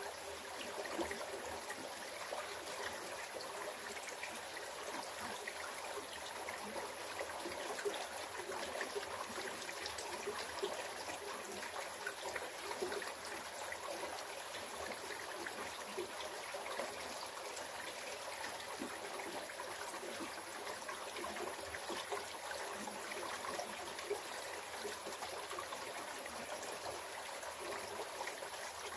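Water of a small rocky river running steadily.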